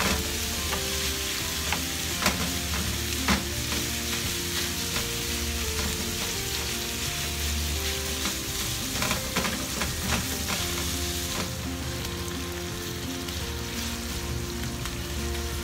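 Raw minced pork sizzling in hot oil in a frying pan over high heat. A wooden spatula scrapes and knocks against the pan as the mince is broken up, with a few sharper taps a couple of seconds in.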